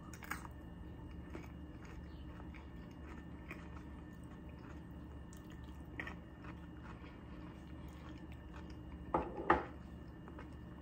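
A person biting and chewing a crisp air-fried jicama fry, with small crunching clicks over a low room hum. A louder double sound comes about nine seconds in.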